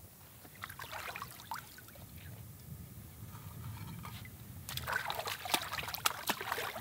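Shallow ditch water splashing and trickling as freshly caught tilapia are rinsed by hand, with a louder, quick flurry of splashes near the end.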